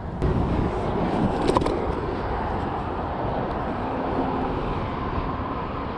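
Steady rumble of road traffic on the bridge overhead, rising just after the start and slowly easing off, with a few faint clicks.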